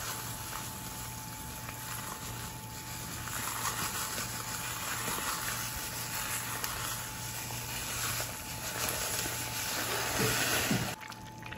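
Water at a rolling boil in a cooking pot, a steady bubbling hiss, while dry vermicelli is tipped in from its packet. The sound drops away briefly near the end.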